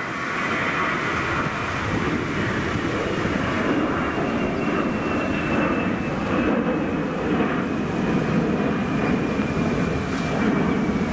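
Jet engines of a Vueling Airbus A320 at climb power just after takeoff: a steady roar with a faint high whine that slowly falls in pitch.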